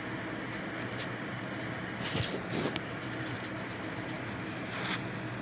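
Brief scratchy rustling and scraping from hands at work, then a single sharp click about three and a half seconds in and more rustling near the end, over a steady low hum.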